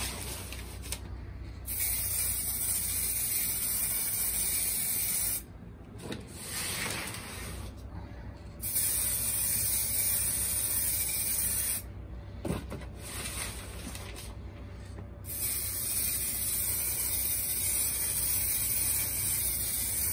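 Aerosol spray-paint can hissing as a coat of colour is sprayed on, in long bursts of a few seconds each with short pauses between.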